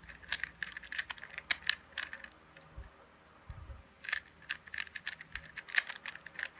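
Plastic 3x3 Rubik's cube being turned quickly by hand: a rapid run of sharp clicks and clacks as the layers snap round, in two bursts with a short pause between. This is a last-layer edge-permutation algorithm (PLL) being executed to finish the solve.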